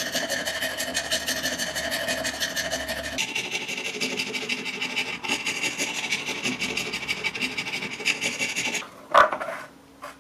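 Round file rasping rapidly back and forth inside a hole in a plate held in a vise, enlarging the centre hole to fit the bench grinder shaft. The filing stops near the end, followed by a single sharp knock and a small click.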